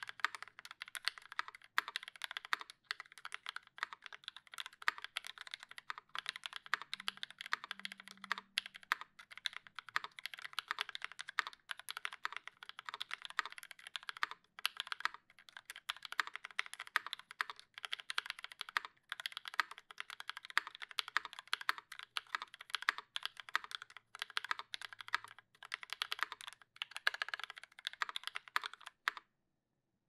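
Fast, continuous typing on a Square80 mechanical keyboard with lubed linear switches (Cream stems in Gateron Yellow milky housings) on a 4 mm aluminium plate, with GMK ABS keycaps and no sound dampening. A dense run of keystroke clacks with a brief break just before the end.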